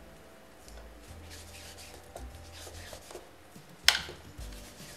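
Hands rubbing and smoothing sugarpaste (fondant) down the sides of a cake, opening out pleats at the base, with a soft, irregular handling noise. A single sharp tap about four seconds in.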